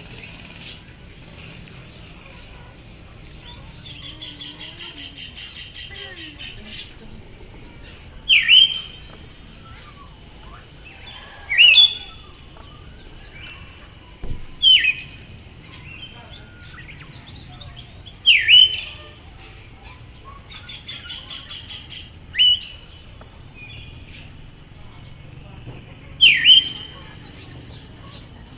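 Female Siberian thrush calling: six loud, short notes, each sweeping down in pitch, spaced about three to four seconds apart, some given as quick pairs. Fainter fast trills sound between the calls.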